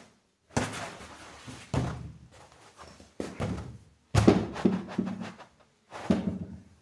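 A hand pressing and patting an inflated car back-seat air mattress: about five sudden thumps, each fading out within a second.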